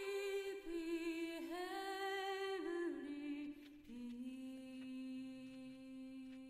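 A wordless voice humming a slow melody of long held notes that step down in pitch, the last note held for a few seconds, with a few faint clicks.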